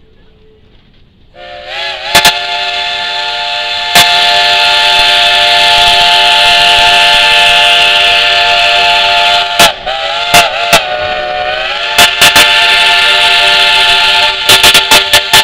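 Steam locomotive's chime whistle blowing: one long blast of several notes at once, then a few short wavering toots, then a second long blast. Sharp clicks from the overloaded camera microphone crackle over it.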